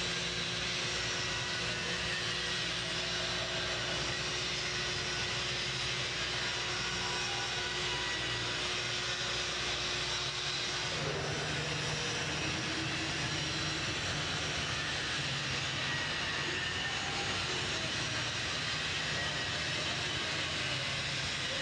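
Steady hum and hiss of distant engine-driven machinery. About halfway through, one steady tone drops away and a lower hum takes over.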